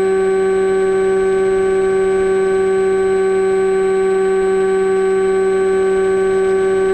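Steady high whine of a model plane's electric motor running at constant throttle, a few fixed tones that hold without change.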